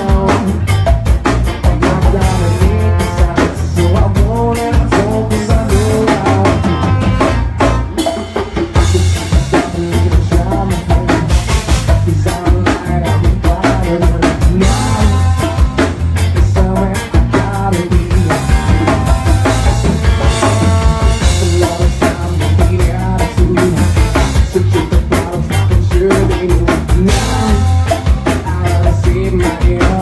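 Live rock band playing: electric guitar, bass and drum kit, with a lead singer at the mic.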